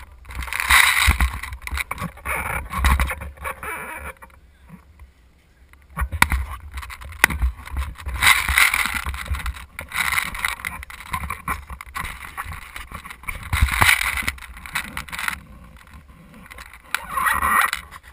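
Movement and handling noise on a gun-mounted action camera: rustling, scattered knocks and rushing noise on the microphone, coming in several swells with a quieter lull about four seconds in.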